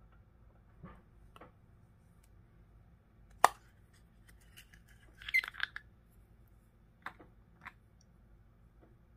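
Small plastic toy capsule being handled and opened: a sharp plastic click about a third of the way in as its lid comes off, then a short clatter of plastic just past the middle, with a few lighter clicks of hard plastic figures handled in the fingers.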